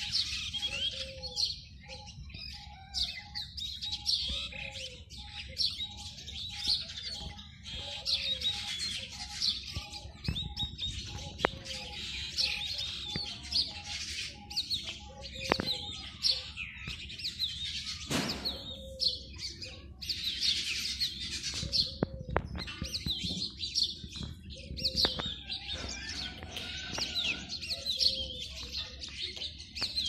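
Oriental magpie robin singing its courtship song amid a busy chorus of other small birds, with many overlapping chirps and whistles. A lower note repeats steadily beneath the chorus.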